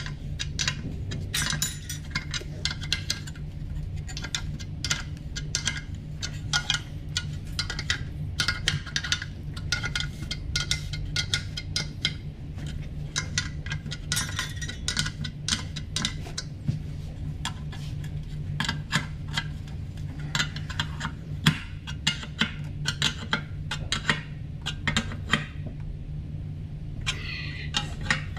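Small hand tools clicking and clinking against the metal of an RB26 intake manifold and its throttle bodies as it is assembled, in irregular light taps over a steady low hum.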